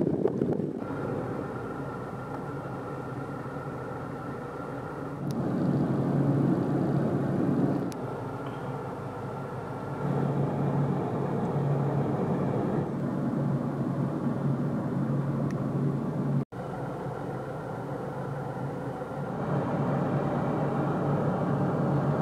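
Steady engine drone with a low hum, the level stepping up and down several times. A brief dropout about three-quarters of the way through.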